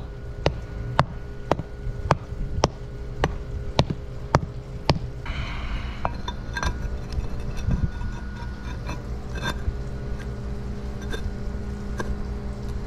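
A mallet tapping a concrete paver into place, about two even, sharp taps a second for the first five seconds. After that the taps stop and stone pavers scrape and clink together as a coping piece is worked into place by hand.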